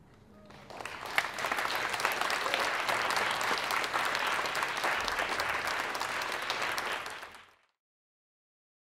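Audience applauding, swelling up over the first second and then cut off suddenly about seven and a half seconds in.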